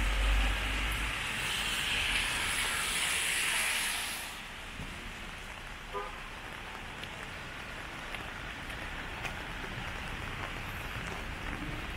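A vehicle passing on a rain-wet street, its tyre hiss and low rumble dropping away suddenly about four seconds in. Steady rainfall follows, with scattered drop ticks.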